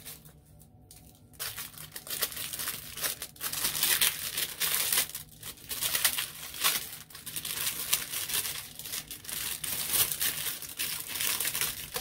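Thin clear plastic packaging bag crinkling and rustling as it is handled and pulled open by hand, starting about a second in and going on irregularly.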